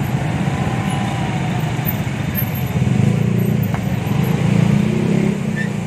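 Motorbike taxi engine running steadily in slow, congested traffic, heard close from the pillion seat, with the surrounding cars and motorbikes around it.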